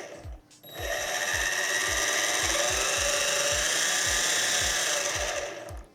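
JJRC H25G quadcopter's brushed motors spinning its propellers under throttle: a steady high whine with an airy rush, starting about a second in and stopping just before the end.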